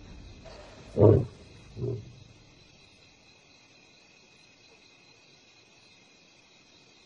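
Lions calling: two short, deep roars about a second apart, the second fainter. After them, crickets chirr steadily and faintly.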